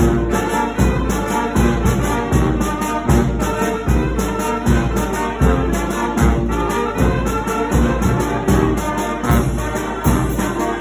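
Mexican brass band (banda de viento) playing dance music. Horns carry the tune over a steady low drum beat.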